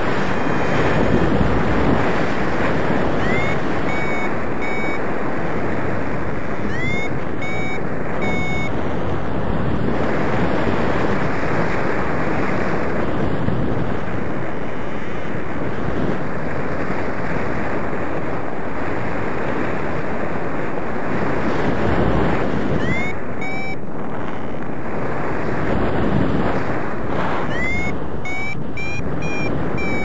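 Steady rush of airflow wind on the microphone of a paraglider in flight. A few times, faint short electronic beeps come through the wind, each rising quickly and then holding one note, from what is most likely the pilot's flight variometer.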